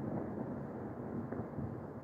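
Distant fireworks: a steady low rumble of overlapping far-off bangs, with a few faint pops.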